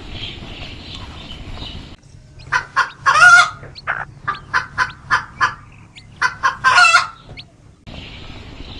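Chicken clucking: a run of short, quick clucks with two longer, louder squawks, one about three seconds in and one near seven seconds, after a couple of seconds of faint hiss.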